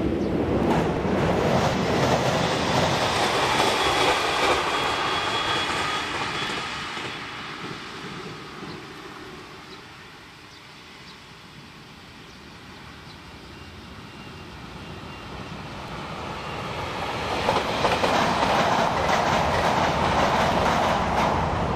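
Electric train running on a railway viaduct, its wheels clattering over the rail joints. The noise is loud at first, fades to a low about halfway through, then swells loud again near the end.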